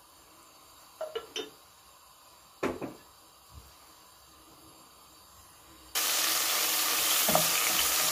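A few light knocks in the first three seconds. Then, about six seconds in, loud steady sizzling starts suddenly: cubes of meat searing in hot oil in a pot on high heat, stirred with a wooden spoon.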